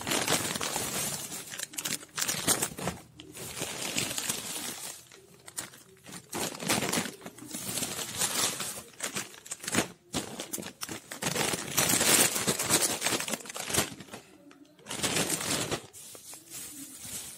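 Crinkly plastic snack packets and chocolate-bar wrappers rustling and crackling in irregular bursts as they are handled.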